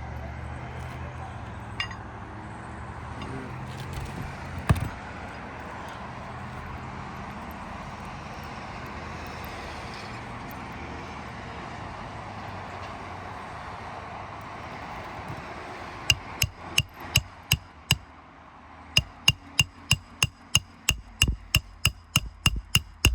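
A hand hammer drives roofing nails into a replacement shingle. There are a couple of isolated knocks at first, then about two-thirds of the way in come two quick runs of sharp, ringing strikes, about three a second, over a steady background rush.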